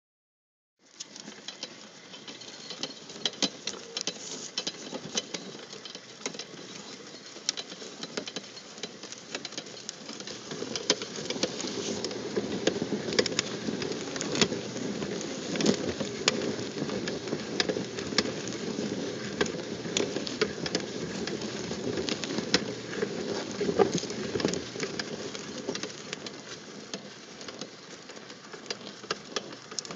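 Screw auger turning in a steel trough full of wood chips: a steady rattle of shifting chips, dotted with many small clicks and ticks. A lower rumble grows louder from about ten seconds in and eases off near the end.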